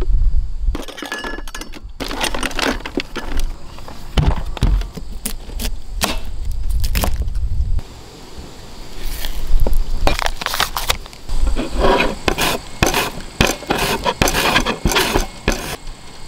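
Metal and plastic utensils clinking and knocking as they are lifted out of a cooler. In the second half a knife cuts a cucumber on a cutting board, then the cucumber is rubbed over a plastic julienne grater in quick repeated strokes, about two a second.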